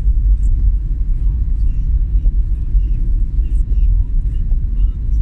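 Steady low rumble of a vehicle on the move through city streets, heard from on board, with faint short chirps scattered above it.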